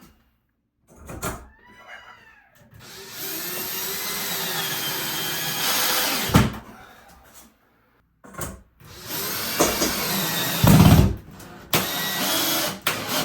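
Power drill running in two long runs of a few seconds each, after a brief whir that rises and falls in pitch, driving screws to mount a metal shower rack onto a wooden board. A few loud knocks fall between and within the runs.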